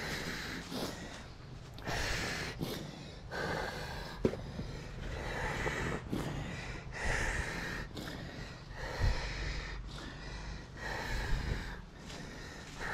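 A person breathing audibly close to the microphone, a noisy breath roughly every second, over a faint steady low hum, with one sharp click about four seconds in.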